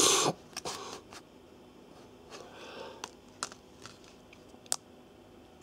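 Plastic SIM card carrier being handled and flexed between the fingers: a short rustle at the start, a softer one midway, and a few sharp clicks and ticks as the card is bent to press the nano SIM out of its frame.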